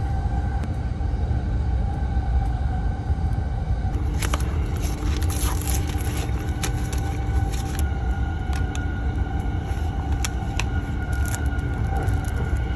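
Passenger train running, heard from inside the carriage: a steady low rumble with a constant hum. From about four seconds in, the cardboard box and paper wrapping of a boxed lunch are handled and opened, with many small clicks and rustles.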